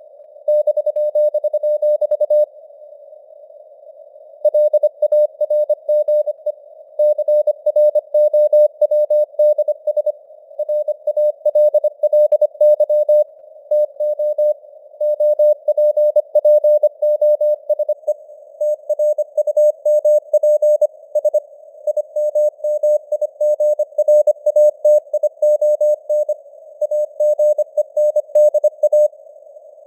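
Morse code (CW) at 25 words per minute: a single tone around 600 Hz keyed on and off into letters and words, over faint simulated radio hiss, with the signal strength rising and falling. There is a pause of about two seconds between words about two and a half seconds in.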